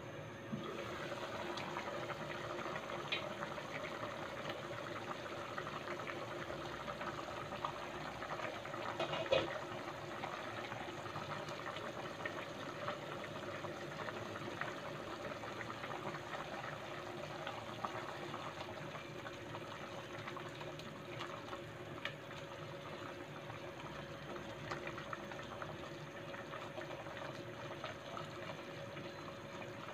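Pot of chicken soup with vermicelli at a rolling boil, giving a steady bubbling that runs on evenly once the lid is lifted off near the start. There is a single sharp knock about nine seconds in.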